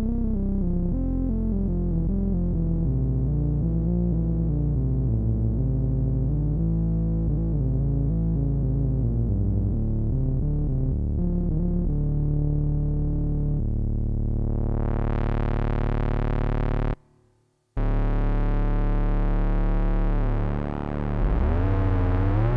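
Behringer Odyssey analog synthesizer playing a gliding, stepwise melodic line, then a held note whose filter opens up and grows brighter. The sound cuts out for under a second about three-quarters of the way through, and near the end the pitch swoops down and glides back up.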